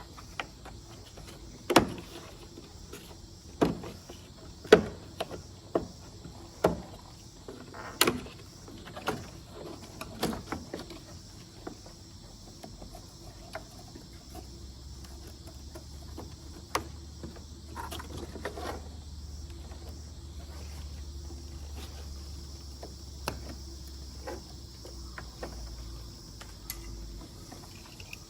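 Sharp plastic clicks and knocks as a rear parking sensor is worked free of its clips and tabs in the bumper, about eight in the first ten seconds, then fainter scattered ticks over a low steady hum.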